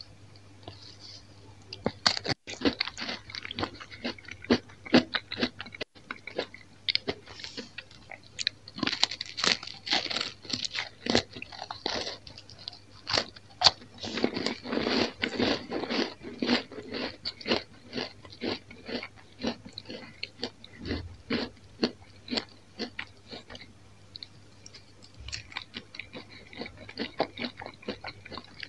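Bites and chewing of a thin, crisp slice of Roumi-cheese bread: a dense run of sharp crunches, thinning out about three-quarters of the way through and picking up again near the end.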